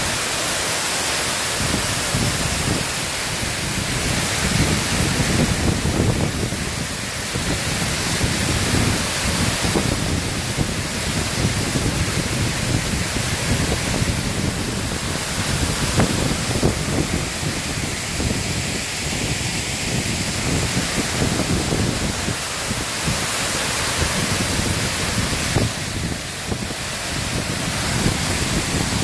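Water pouring over a stepped dam spillway and crashing into the pool below: a steady rushing roar of falling water that swells and eases slightly.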